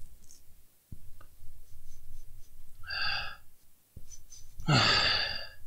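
A man's breath noises close to the microphone, with two short voiced sighs, the second, longer one falling in pitch near the end.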